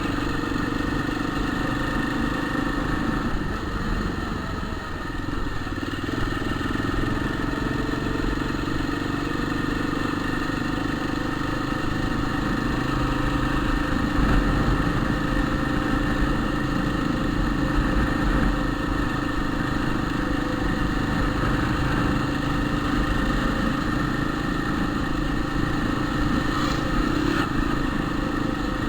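Motorcycle engine running steadily at an even speed, with no revving.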